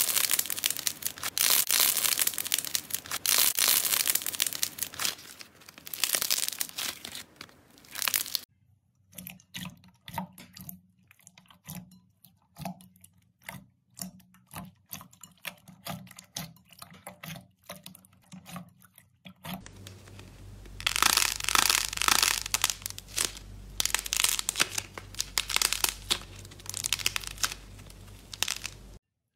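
Hands squeezing and stretching slime. Dense crackling and popping runs for the first eight seconds or so, then gives way to softer, sparse clicks and squelches as a glossy slime is poked. After about twenty seconds a fluffy slime brings dense crunchy crackling again, with a low steady hum under it.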